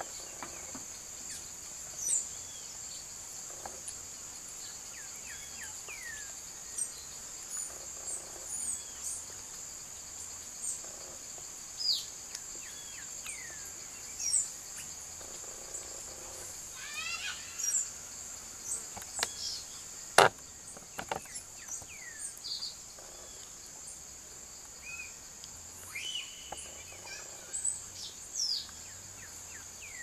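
A steady high-pitched insect drone runs under scattered short, thin bird chirps and whistles, a few at a time, with a sharp click about two-thirds of the way through.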